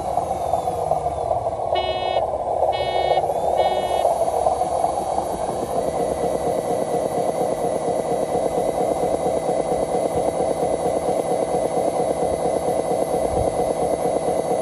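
Radio-controlled truck's drive motor and gearbox running steadily as the stuck model truck strains in loose dirt. A faint whine dips in pitch and climbs back during the first few seconds. Three short electronic beeps sound about two to four seconds in, like a reversing alarm.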